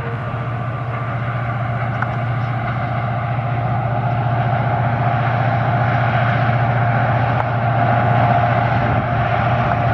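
Diesel locomotive engine running as it hauls a passenger train, a steady low drone that grows gradually louder.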